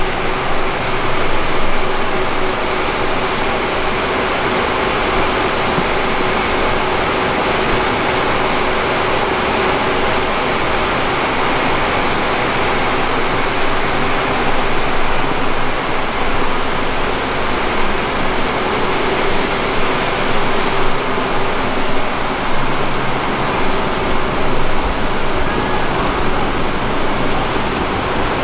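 Drainage pumps at a flood-control pumping station running: a loud, steady mechanical drone with a constant hum over a rushing noise.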